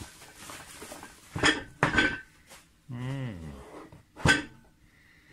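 A cardboard eyepiece box and its bubble-wrap packaging being handled on a tabletop: three sharp knocks, each with a brief clinking ring, and a short falling hum from a person's voice about three seconds in.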